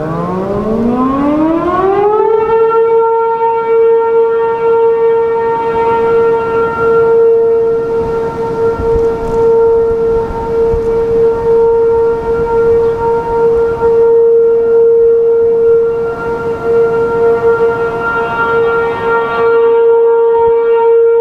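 A.C.A. P-15 outdoor warning siren winding up, its pitch rising over the first two seconds or so, then holding a steady alert tone. It is heard from about 2100 feet away, with wind noise beneath it.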